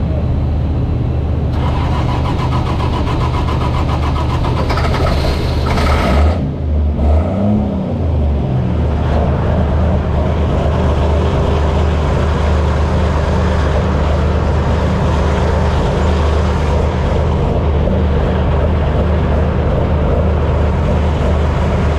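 Pulling tractor's engine running hard and steady under load, with a high whine for the first several seconds and a brief drop and rise in revs about seven seconds in.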